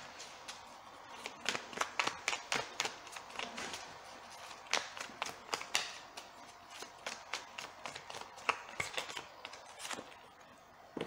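A deck of tarot cards being shuffled by hand: a quick, uneven run of soft card slaps and clicks that thins out near the end.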